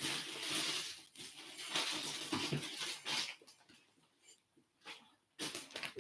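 Rustling and crinkling of a wrapped dog bathrobe being pulled out and handled, in irregular bursts for about three seconds, then a pause and a brief rustle near the end.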